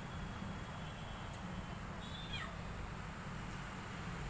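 A cat meowing: a short falling cry about two seconds in and another near the end, over a steady low background hum.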